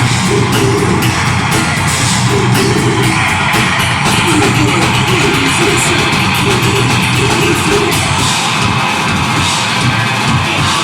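Deathgrind band playing live: loud, dense distorted guitars and bass over drums with rapid cymbal hits.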